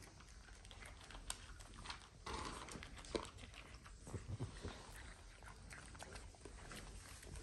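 French bulldog puppy eating dry kibble from a plastic bowl: faint scattered crunches and clicks of kibble against the bowl, with a louder rustle of the snout in the bowl about two seconds in. A short low dog sound follows about four seconds in.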